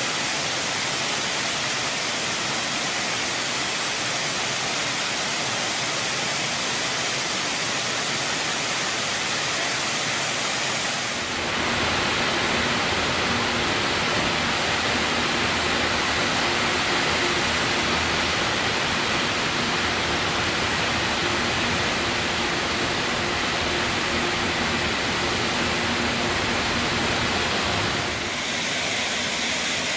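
Taconite pellets pouring down the ore dock's steel chutes into a lake freighter's cargo holds: a steady rushing hiss like a waterfall. It grows fuller and a little louder, with a faint low hum underneath, about a third of the way in, and eases back near the end.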